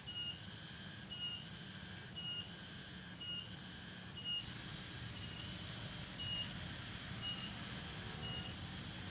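High-pitched insect calls repeating steadily about once a second, each a short high note followed by a longer shrill call, over a faint low hum.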